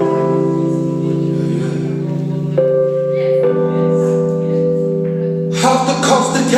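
Music for a zouk dance: a slow intro of held keyboard chords that shift twice, then a full beat comes in about five and a half seconds in.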